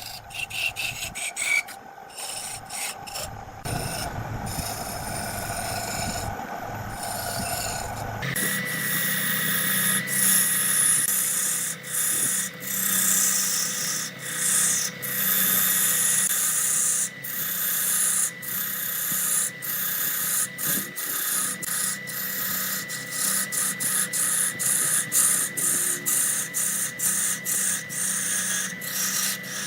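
Wood being worked on a lathe: a tool scraping and rubbing against the spinning wood in irregular strokes. About eight seconds in the sound changes abruptly, and a steady machine hum runs under the scraping from then on.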